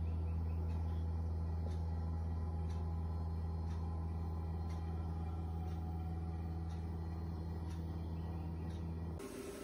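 Steady low electrical or mechanical hum, like a motor or appliance running, with faint regular ticks about once a second. It cuts off suddenly near the end.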